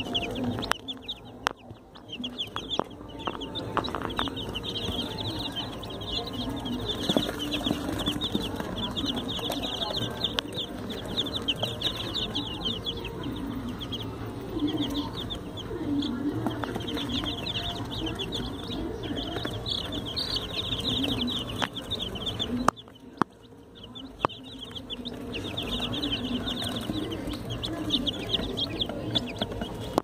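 A brood of domestic chicken chicks peeping nonstop, many high chirps overlapping, with a short lull about three-quarters of the way through. A few sharp knocks sound now and then.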